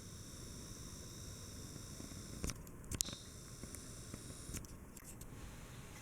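Hunter Osbourne ceiling fan running with a faint, steady whir and hum, with a few short clicks about two and a half, three and five seconds in.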